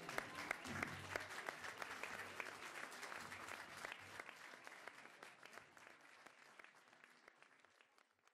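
Audience applauding, the clapping fading out steadily to near silence by the end.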